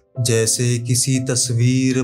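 A man's voice singing a line of Urdu poetry in a drawn-out, melodic way, holding long notes. It comes in just after a brief pause.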